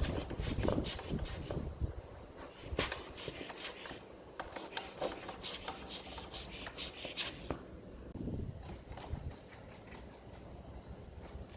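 Quick rubbing strokes, several a second, come in four bursts with short pauses between, as decades of dust are scrubbed off an old cassette radio boombox.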